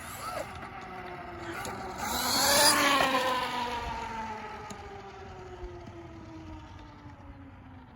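Traxxas Maxx RC monster truck's brushless electric motor whining, with tyre hiss, as it drives past. It is loudest about two and a half seconds in, then the whine falls steadily in pitch and fades.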